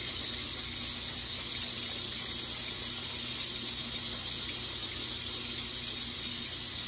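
Bathroom sink faucet running steadily into the basin, a constant hiss of water, with a faint steady hum underneath.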